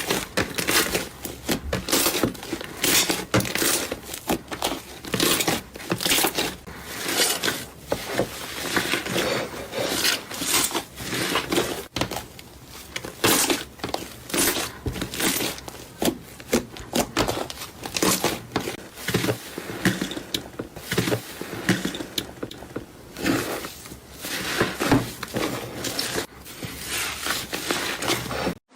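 Slime being squeezed and worked by hand, giving a dense run of irregular short crackles and pops that cuts off suddenly near the end.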